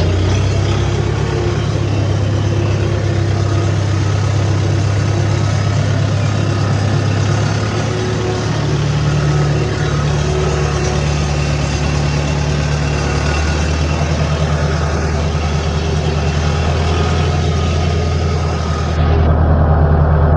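A motor engine running steadily, with a low, even hum; about nineteen seconds in the sound turns duller and slightly louder.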